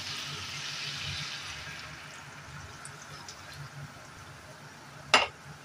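Sprite poured from a can into a hot frying pan of beef ribs and potatoes, a splashing hiss that fades over the first two seconds into a quieter steady bubbling. One sharp click about five seconds in.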